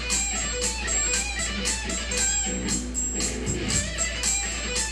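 Electric guitar playing a string-bending exercise over a backing track with a steady beat, picked in fast, even downstrokes that come close to strumming.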